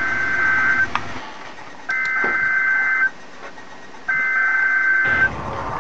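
NOAA Weather Radio SAME alert data tones: three electronic data bursts of about a second each, spaced about a second apart. These coded bursts mark an emergency alert message on the weather radio broadcast.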